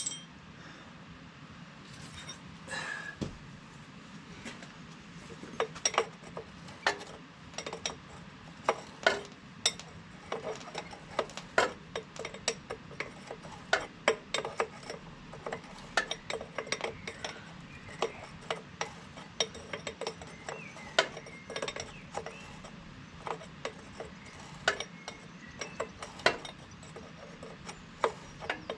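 Spanner work on a hydraulic hose fitting: a long run of sharp, irregular metallic clicks, a few a second, over a faint steady hum.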